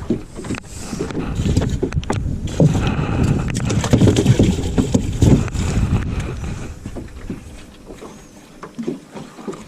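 Knocking and clattering around a small fishing boat over a low rumble, busiest for the first six seconds and then easing off.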